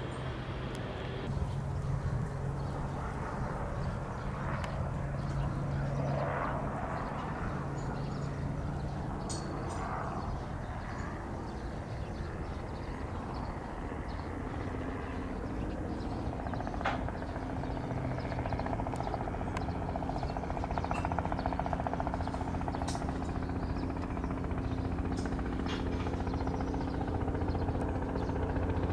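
Robinson R44 Raven helicopter's piston engine and rotor running with a steady hum; the pitch steps up about halfway through and the sound grows louder toward the end. A few short clicks are heard along the way.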